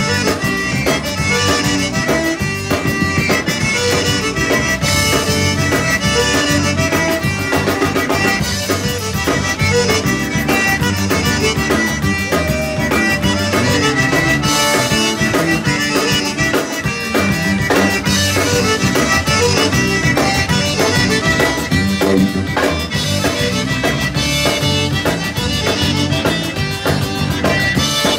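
Live zydeco band playing, with a diatonic button accordion leading over electric guitar, bass and a steady drum beat.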